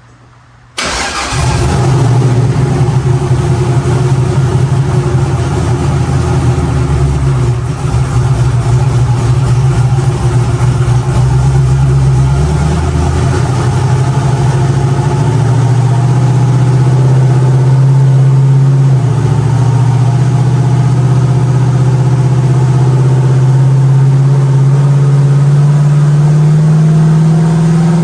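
Methanol-fuelled, turbocharged Chevy Nova engine running loud on a chassis dyno. The sound starts suddenly about a second in and holds a steady note, which climbs slowly over the last ten seconds as the revs rise. On this pull the engine would not build boost.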